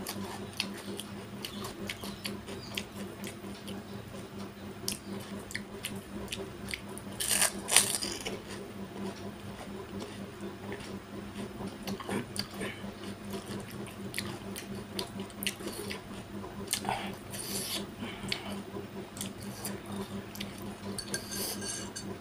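Close-miked eating of pani puri: crisp puri shells cracking and crunching, with wet chewing clicks between. The loudest crunch comes about seven or eight seconds in and another near seventeen seconds, over a steady low hum.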